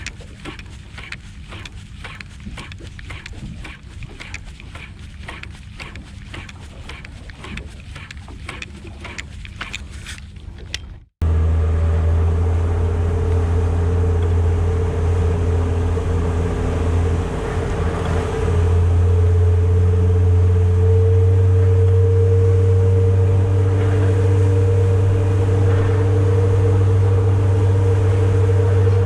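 Small fishing boat's engine running steadily under way, loud and low, coming in suddenly about eleven seconds in. Before that there is a quieter stretch of rhythmic ticking, about two a second, over a faint low hum.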